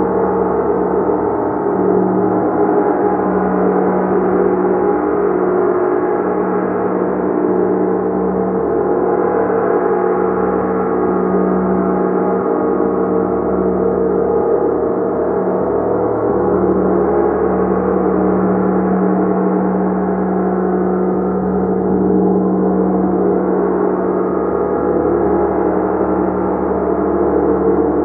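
Gong played continuously: a dense, sustained wash of many ringing overtones at a steady loudness, with a strong low hum underneath, slowly swelling and pulsing.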